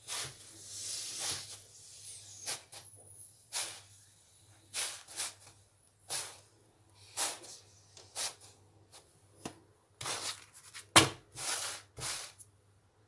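A folded cloth pressing and rubbing a roti on a hot iron tawa: a string of short soft swishes, about one a second, the loudest a little before the end, over a faint steady low hum.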